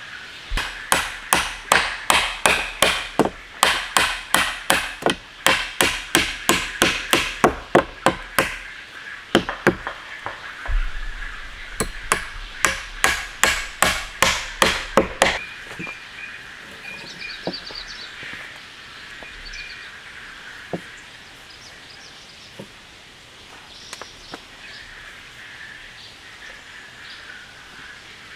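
A fast series of hard striking blows, about three a second, with a short break partway and stopping about halfway through.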